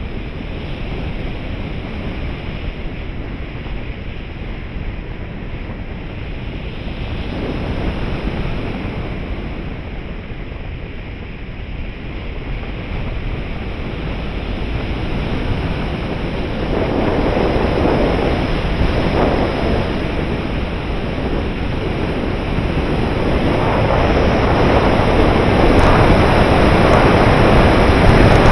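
Airflow rushing over the onboard camera of a 3.6 m RC glider in flight, a steady wind noise on the microphone that swells and grows louder in the second half as the glider banks and picks up speed.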